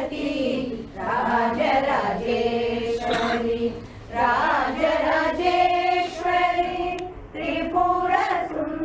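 A group of women singing a devotional hymn together in unison from booklets, in phrases of long held notes with short breaks between them.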